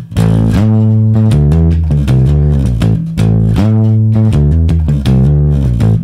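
Electric bass guitar playing a rock riff of plucked notes, with timed slides gliding between pitches and muted, percussive dead notes between them.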